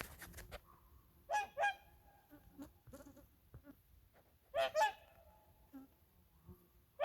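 A pair of swans calling: a loud two-note call about a second and a half in and another near five seconds, with softer short calls between.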